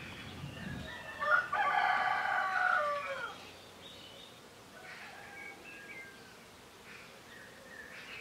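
A rooster crows once, starting about a second in and lasting about two seconds, its call falling in pitch at the end. Small birds chirp faintly around it.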